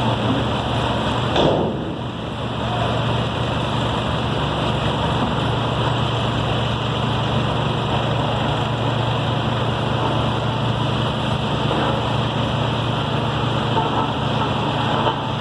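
Heavy engine of road-construction machinery running steadily, with a brief louder swell about a second and a half in.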